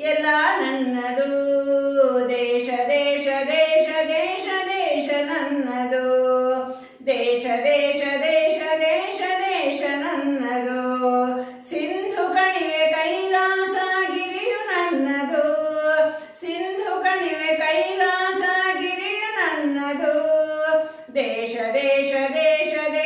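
A woman singing a Kannada patriotic song solo and unaccompanied, in long melodic phrases with a short breath between them every four or five seconds.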